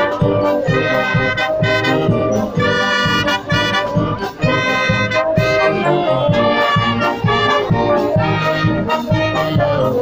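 Brass band playing a Christmas carol: trumpets, trombones, saxophones and sousaphone over a steady drum beat.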